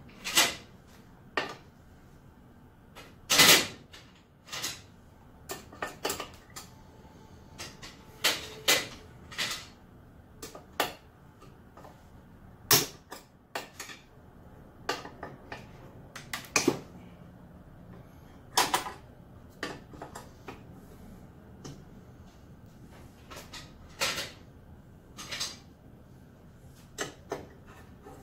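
Irregular clicks, clacks and knocks of tools and metal parts being handled on a Delta 10-inch compound miter saw as it is taken apart, with the loudest knocks a few seconds in and around the middle.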